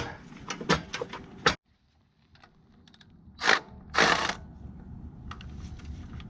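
Scattered metal clicks and knocks, then a brief drop to silence and two short bursts of ratchet noise a little over half a second apart, the second about half a second long.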